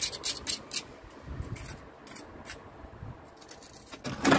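Small pointing trowel scraping at mortar on brickwork in several quick short strokes, then quieter. A louder scrape near the end.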